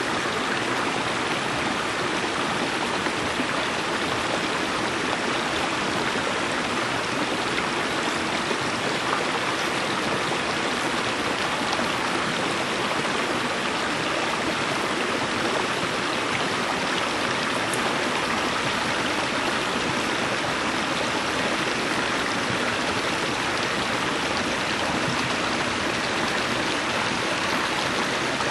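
Shallow rocky creek running over boulders and small ledges: a steady, unbroken sound of flowing water.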